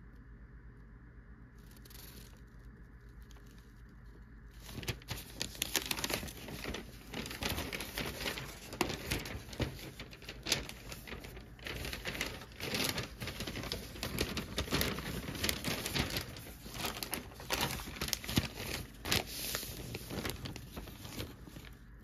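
Newspaper pages rustling and crinkling as they are handled and turned, starting about five seconds in and stopping just before the end.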